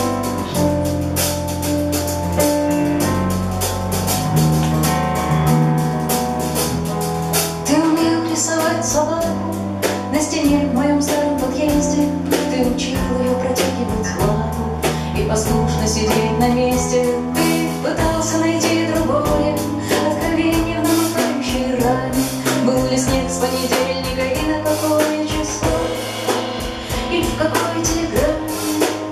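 Live band playing a song: a woman singing over keyboard, electric bass, acoustic guitar and drum kit, with a steady drum beat. Her voice comes in a few seconds in.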